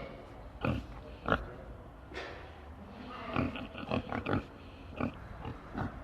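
Pigs grunting: a string of short, separate grunts, bunched closer together a little past the middle.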